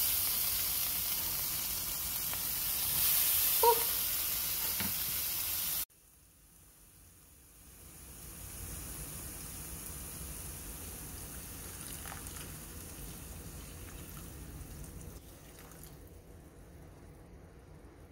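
Chopped tomatoes sizzling in a hot oiled nonstick frying pan with spiced onions and garlic, with one short squeak about four seconds in. About six seconds in the sound cuts off abruptly, then comes back as a softer, steady sizzle as the tomatoes give up their juice.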